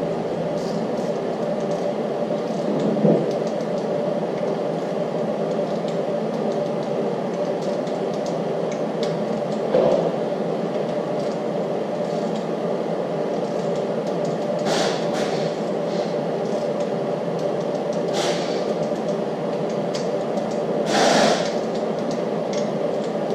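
Steady machine hum throughout, with a few sharp metallic clicks and one short rattle in the second half as the timing chain tensioner and guide bolts are tightened with a torque wrench to 100 inch-pounds.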